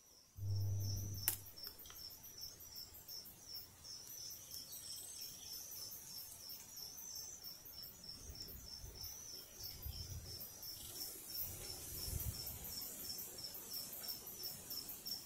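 An insect chirping in a steady, high-pitched pulse, about four pulses a second, over faint outdoor ambience. About half a second in, a short low hum ends in a sharp click.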